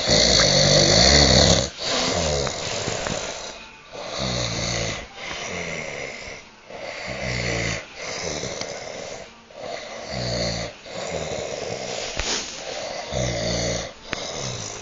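A sleeping person snoring loudly in a steady rhythm, one snore on each breath, the first one the loudest.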